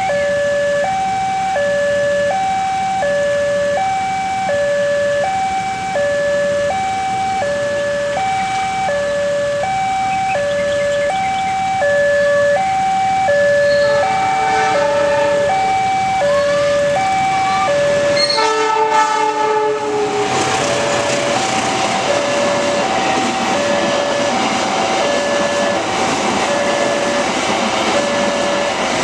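Railway level-crossing alarm sounding a steady alternating two-tone chime, one high-low cycle about every second and a half. A horn blows just past the middle, then again louder a few seconds later. From about two-thirds through, a passenger train runs past, its wheel and rail noise under the continuing alarm.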